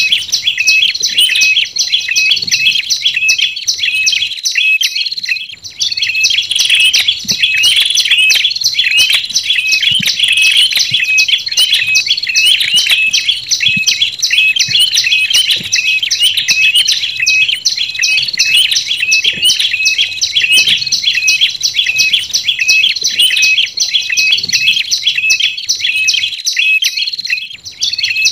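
Tailorbirds (prenjak) calling in a bird-lure recording: rapid, repeated, high-pitched chirping notes that overlap, as if several birds are calling together. The chirping dips briefly about five seconds in and again near the end.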